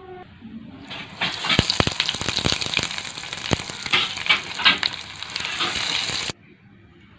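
Crumb-coated banana flower vadas deep-frying in hot oil in a kadai: a loud sizzle full of sharp crackling pops that starts about a second in and stops abruptly about six seconds in.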